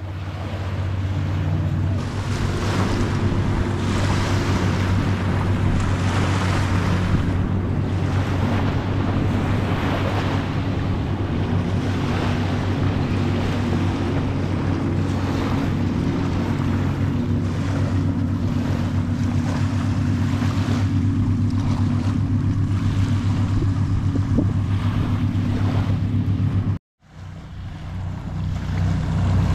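Surf washing on a shell beach and wind buffeting the camera microphone, over a steady low hum. The sound drops out briefly near the end, then fades back in.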